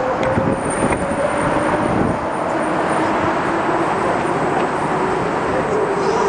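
Steady noise of road traffic, with a faint steady hum.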